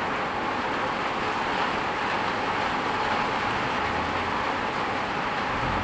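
Heavy rain pouring onto a wet street, a steady hiss of drops splashing on the road and puddles. A low vehicle engine rumble comes in near the end.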